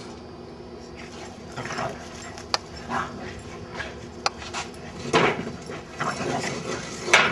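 Two dogs playing rough, with short yips, whines and barks in irregular bursts from about a second and a half in, loudest around five seconds in and again near the end.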